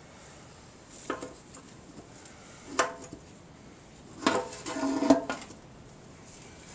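Sheet-metal gas tank from an Avery engine clanking and ringing as dents are worked out of it. There is a short clank about a second in, a louder ringing clank near three seconds, and a longer metallic ringing, the loudest, between four and five seconds.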